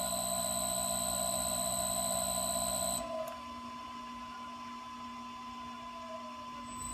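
Floor grinder's motor, fed by a Lenze ACTech variable frequency drive, running in reverse with a steady high-pitched whine over a low hum. The whine cuts off about three seconds in as the drive is stopped.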